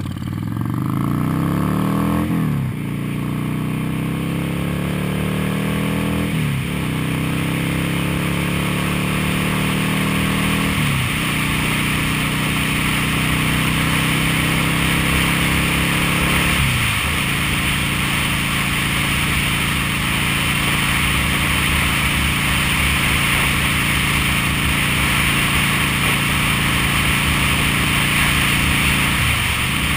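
V-twin cruiser motorcycle accelerating through the gears: the engine note climbs and drops sharply at four upshifts over roughly the first seventeen seconds, then holds steady at cruising speed, with a brief dip again near the end. Wind noise on the microphone grows as the speed builds.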